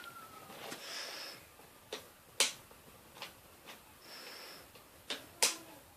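A series of sharp clicks and taps, about six in all, with two brief high-pitched tones between them.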